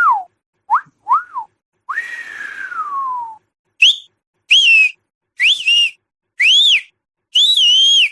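A series of short whistles, each rising then falling in pitch. About two seconds in there is one long whistle that slides steadily downward. After it come several higher-pitched rising-falling whistles in quick succession.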